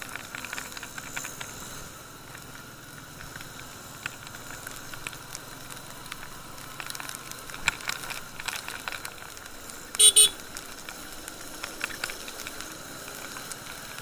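Wet road traffic heard from a moving motorcycle in the rain: a steady rush of tyres and wind, with many small crackling ticks of raindrops. A vehicle horn beeps twice in quick succession about ten seconds in.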